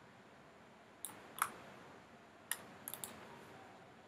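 Faint, scattered clicks of a computer mouse and keyboard, about five in all, the one near a second and a half in the loudest.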